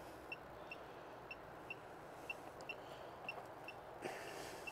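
Quiet outdoor background with a short high chirp repeating in pairs about once a second, and a brief rush of noise about four seconds in.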